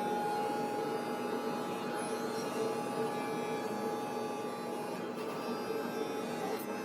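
A steady hum with a couple of constant held tones and no distinct events.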